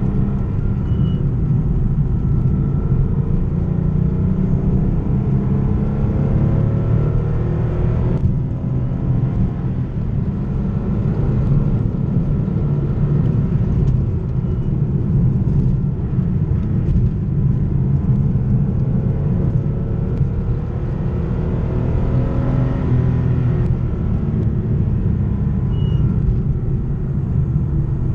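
Porsche 964 Carrera 2's air-cooled 3.6-litre flat-six heard onboard while driving. Its note climbs and falls back several times over a steady low rumble, with short dips in level where it comes off the throttle.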